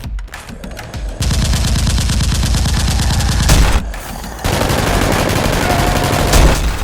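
Rapid automatic gunfire in two long bursts, with a short break a little before the four-second mark.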